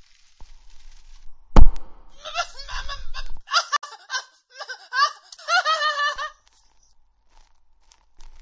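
A loud thump, then a high-pitched voice giggling and chattering in short wavering bouts, which cuts off suddenly about six seconds in.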